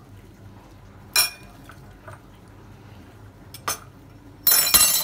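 Metal spoon clinking against dishes: one ringing tap about a second in, a lighter tap later, and a louder rattling clatter near the end.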